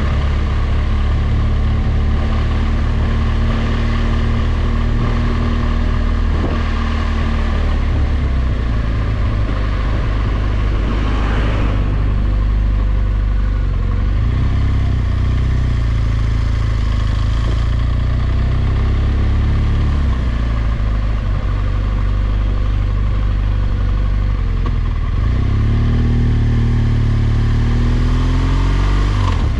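BMW R1200GS boxer-twin engine running at low road speed, heard from the rider's seat, its pitch shifting as the throttle opens and closes. Near the end it accelerates with a rising pitch.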